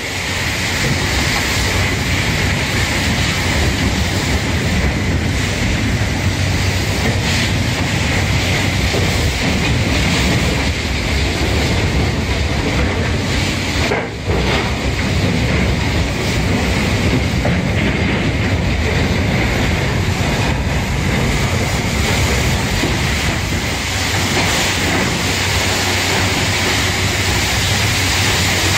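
Hydraulic brush-cleaning machine working inside an open gondola railcar, its rotating brushes scrubbing residue off the steel floor: a steady, dense noise with a low hum, broken by a short dip about halfway through.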